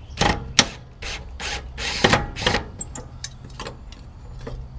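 Clicks, knocks and short scrapes of headlight parts and trim being handled, busiest in the first two and a half seconds, then a few light ticks.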